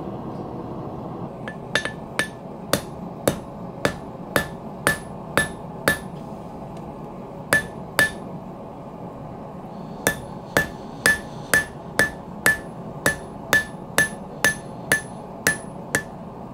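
Hand hammer forging hot steel on an anvil, drawing down the jaw end of a set of blacksmith tongs. Even blows come about two a second, each with a short ringing ping from the anvil, with a couple of short pauses between runs of blows.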